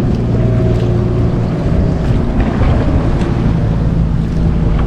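Motorboat engine running with a steady drone as it passes near a kayak; its pitch shifts higher about halfway through. Wind buffets the microphone throughout.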